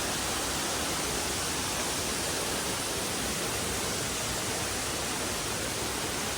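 Steady rush of flowing water, an even hiss with no change in level.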